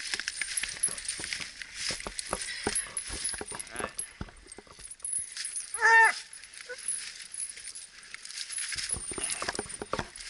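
Bluetick coonhounds on chain leashes scuffling through dry leaves, with the chains rattling and the leaves crackling throughout. About six seconds in, one hound gives a single short, loud bark.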